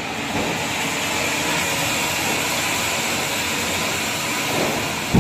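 A Diwali fountain firecracker (anar) sending up its column of sparks with a steady rushing hiss, ending with a sudden loud thump.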